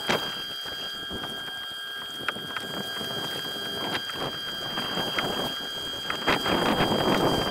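Small waves slapping and splashing against a kayak hull in the wind, over a steady high-pitched whine from the Jackson Flex Drive E electric motor. The splashing grows louder near the end.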